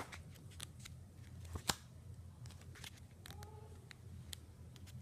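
Paper pages of a coloring book being handled and turned: scattered light rustles and clicks, one sharper click near the middle, over a faint low room hum.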